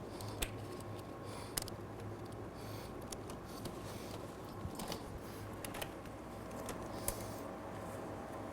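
Faint scattered clicks and brief rustles of a long zip tie and wire being pushed down through a motorcycle handlebar, over a low steady hum.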